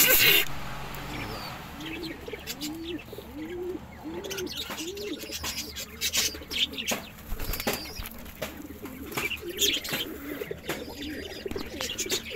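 Domestic pigeons cooing: a run of short coos that rise and fall, each under a second apart for a few seconds, with more now and then later. A brief burst of wing-flapping comes right at the start, and scattered sharp clicks run throughout.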